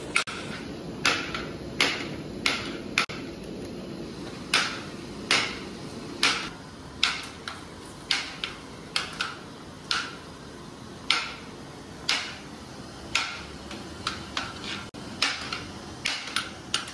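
A metal serving spoon knocking against the rim of a large aluminium cooking pot as rice is scooped out, in sharp clinks at an uneven pace of about one a second. A steady low rumble runs underneath.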